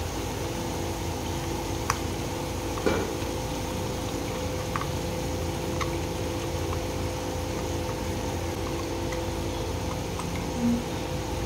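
A steady hum and low simmer from the pot of chicken cooking in oil on the stove. A few light clicks and scrapes come in the first half, from a spoon scraping thick ground masala paste out of a steel bowl into the pot.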